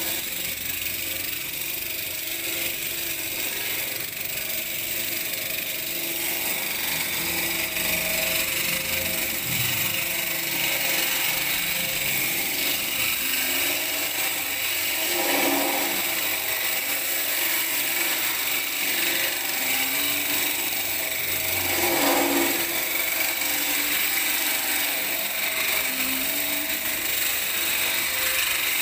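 Electric walk-behind concrete groove cutter running, its water-fed blade grinding a groove into a concrete slab as the machine is pushed along. A steady, high-pitched grinding that swells slightly twice.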